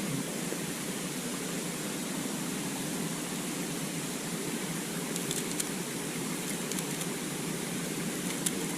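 Steady rushing noise of a waterfall, even throughout, with a few faint ticks in the second half.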